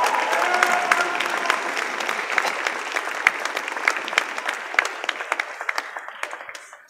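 Audience applauding, the clapping gradually thinning and fading out before it cuts off abruptly.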